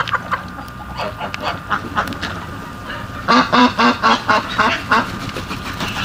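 A flock of domestic ducks quacking, many short quacks overlapping, with a loud rapid run of quacks through the second half.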